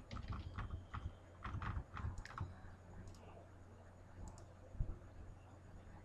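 Light clicks from a computer keyboard and mouse: a quick run of them in the first two and a half seconds, then a few isolated clicks. A faint steady low hum runs under them.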